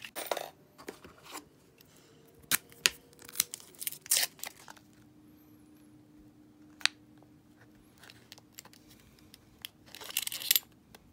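Half-dollar coin rolls being unwrapped and handled: paper wrappers tearing and crinkling, with scattered sharp clicks of coins knocking together and a longer burst of rustling near the end.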